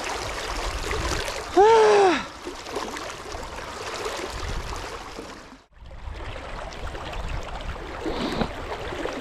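River current rushing steadily around a wading angler. About two seconds in, the angler gives one short groan that rises and falls in pitch. Just past the middle, the sound cuts out for an instant.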